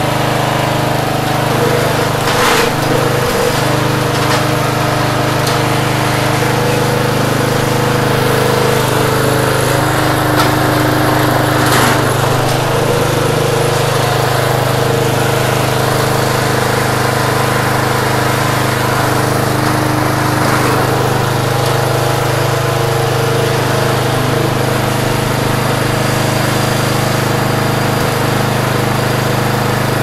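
John Deere JA65 walk-behind lawn mower's single-cylinder engine running steadily at a constant speed, having just been brought back to life after not starting.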